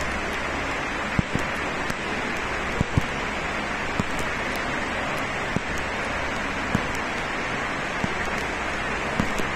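Steady rushing hiss of a metro station's ambient noise, with soft low thuds about once a second from the footsteps of someone walking.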